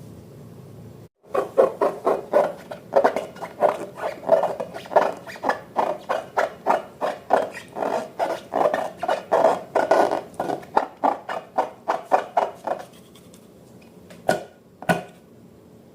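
Slime being mixed, with rhythmic wet rubbing and scraping strokes about three times a second. They stop near the end, followed by two sharp clicks.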